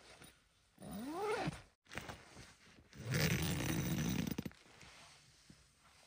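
A dog gives a short whine that rises in pitch, about a second in. From about three seconds in comes a louder, rough rasping noise that lasts about a second and a half.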